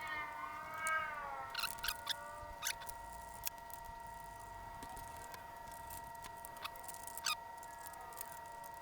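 A wavering, pitched animal-like call over the first second and a half, then a few sharp clicks and clinks spread through the rest. Faint steady tones run underneath.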